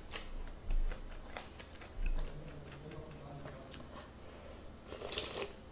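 A red plastic spoon clicks and knocks against a pot of doenjang stew as it scoops, then comes a short slurp of the hot broth from the spoon near the end.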